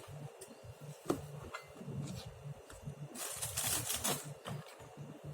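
Small kitchen handling noises: a few light clicks and knocks, and a brief rustling hiss about three seconds in, while tofu puffs are being coated with cornstarch.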